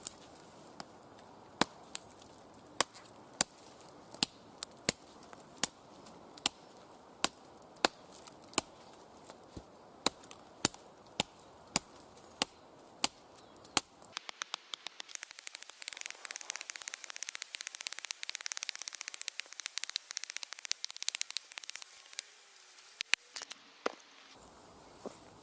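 A Cold Steel SRK San Mai knife chopping into a sawn log, about twenty sharp strikes at roughly one or two a second. About halfway through the strikes give way to some ten seconds of dense, rapid crackling ticks with a high hiss, which stop near the end.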